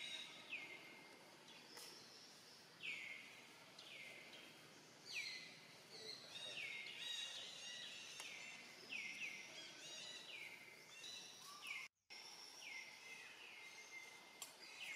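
Faint outdoor background with a bird chirping over and over, each short call sliding down in pitch, about one to two a second. The sound cuts out completely for a moment a few seconds before the end.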